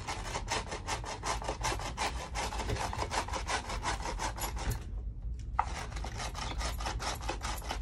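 Handheld herb mincer worked rapidly back and forth over cilantro on a cutting board, a fast run of rasping, scraping strokes several times a second, with a short pause about five seconds in.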